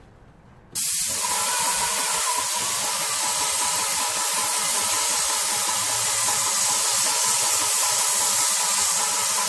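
Airless paint spray gun with a Wagner/Titan 517 HEA tip spraying at about 1,000 PSI: a loud, steady hiss that starts abruptly about a second in, with a faint steady tone beneath it.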